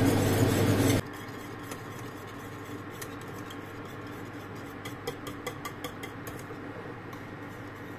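A steady hum and noise for the first second, cutting off suddenly; then a wire whisk scraping and ticking lightly against a stainless steel saucepan as custard is stirred while it thickens.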